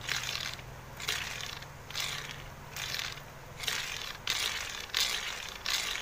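Stripped ceiling-fan motor being turned as a generator, its rotor giving a short scraping rasp about once a second over a faint low hum.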